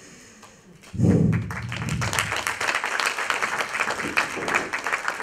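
Audience applauding, with many hands clapping. It starts suddenly about a second in and keeps going.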